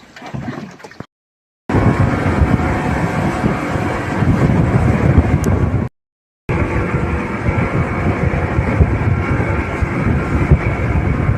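Boat engine running steadily under wind on the microphone, as from a rigid-inflatable patrol boat under way in rough seas; the sound cuts off abruptly twice and resumes.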